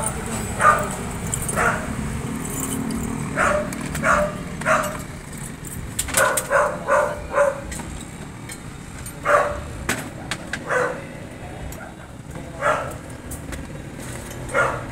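A dog barking repeatedly, single barks and quick runs of two to four. A low rumble fades out in the first few seconds, and there are a few sharp clicks.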